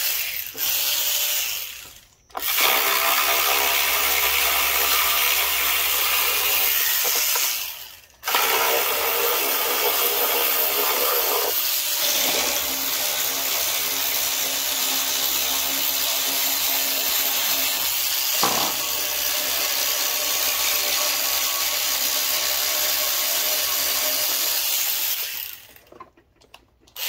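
Power ratchet running in three long runs, the last about seventeen seconds, backing out the 10 mm bolts that hold the engine housing.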